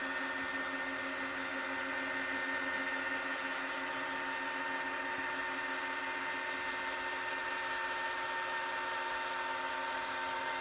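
Deik robot vacuum cleaner running on its way back to the charging station: a steady motor hum with a few held tones.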